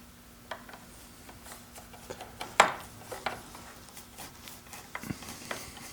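Cover plate being screwed onto a wall switch box with a screwdriver: scattered small clicks and scrapes, the sharpest click a little after two and a half seconds in.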